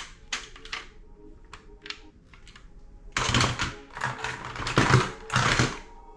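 Plastic toy gun being handled: scattered sharp plastic clicks, then about three seconds in four loud bursts with a low thump, roughly half a second to a second apart.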